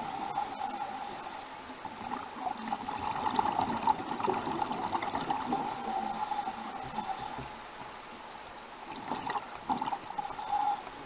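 Underwater sound of a scuba diver breathing through a regulator: three hissing breaths about five seconds apart over a steady watery background.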